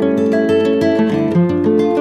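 Background music: a melody of plucked notes over a steady run of lower notes.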